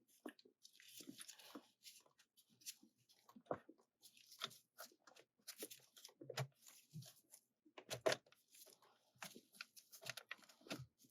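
Plastic steering-wheel trim piece being handled and pressed into place: faint, irregular clicks, taps and rustling scrapes as its tabs are lined up and seated.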